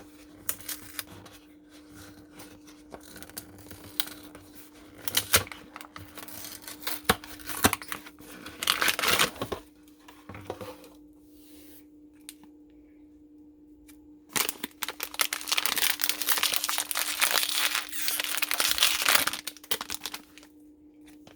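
Plastic candy bag crinkling and being torn open, in scattered bursts at first and then a stretch of continuous crinkling for about five seconds from about fourteen seconds in, over a faint steady hum.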